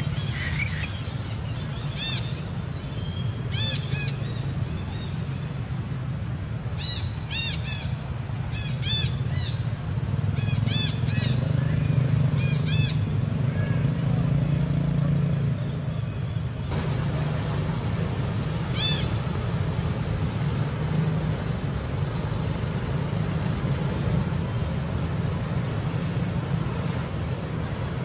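Short high-pitched animal calls, single chirps and quick pairs, scattered through the first twenty seconds over a steady low rumble.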